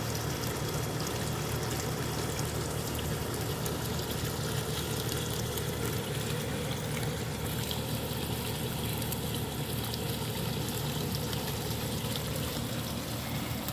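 A small pond fountain jet pouring and splashing steadily onto the water's surface.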